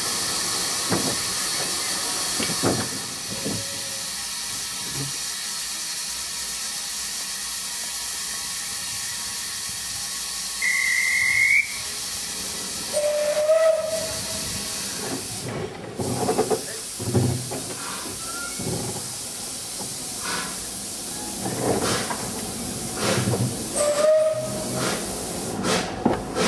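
Isle of Man Railway narrow-gauge steam locomotive standing at a station with a steady steam hiss, followed by a short whistle about 11 seconds in. From about 16 seconds in it starts away, its exhaust beats coming gradually faster as the train pulls out.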